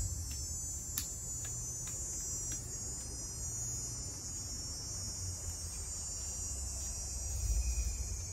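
A steady, high-pitched insect chorus over a low rumble, with a few faint clicks in the first few seconds.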